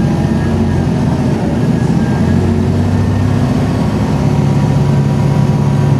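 Volvo B7RLE bus's six-cylinder diesel engine running under way, its note changing pitch about two and four seconds in as the bus's speed changes.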